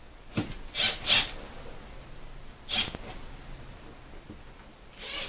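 A man's short, sharp puffs of breath through the nose, four in all, with a light click just before the first.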